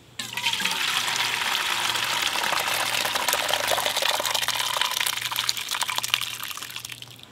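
Cooked autumn olive berries and juice poured from a plastic bucket into a stainless steel colander in a metal pot, splashing steadily. The pour starts suddenly and tails off near the end.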